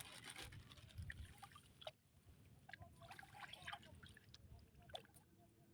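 Very faint trickling and small splashes of shallow water, with a few light sharp ticks about 2, 3 and 5 seconds in.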